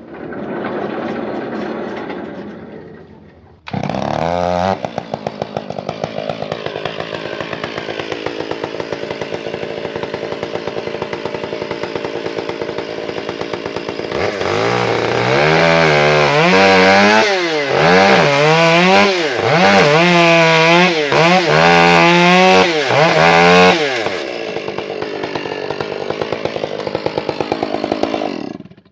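Gas chainsaw that starts suddenly a few seconds in and runs steadily. It is then revved up and down again and again for about ten seconds, settles back to a steady run and shuts off abruptly at the end.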